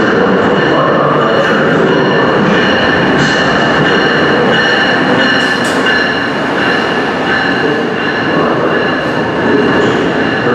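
Amtrak ACS-64 electric locomotive and its stainless-steel passenger coaches rolling past along the platform track: a steady rumble of wheels on rail with a high whine over it and scattered clicks.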